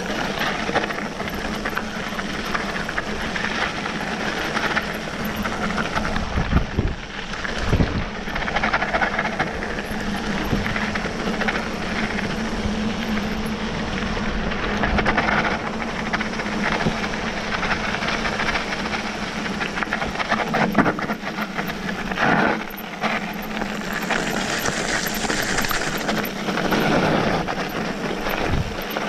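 Mountain bike coming fast down a loose gravel and stone track: the tyres crunch and rumble over the stones and the bike rattles throughout, with a few harder knocks from bumps.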